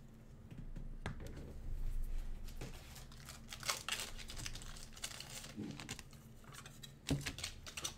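Trading card pack wrapper being torn open and crinkled by hand, an irregular crackling with a couple of light knocks about a second in and near the end.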